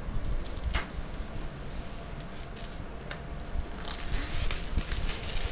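Clear plastic shrink wrap crinkling and crackling as it is handled and peeled off a cardboard box, the crackles growing denser in the last couple of seconds.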